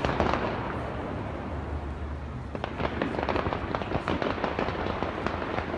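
Fireworks crackling: a dense stream of rapid small pops that thins out about two seconds in, then picks up again.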